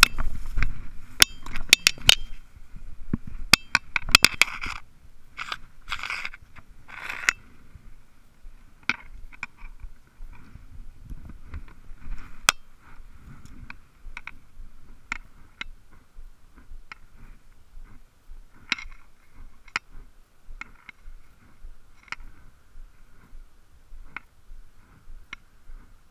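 Dry weeds and brush scraping against the camera housing as someone pushes through bankside vegetation, with many sharp clicks, for about the first seven seconds. After that it goes quieter, with scattered light ticks and taps.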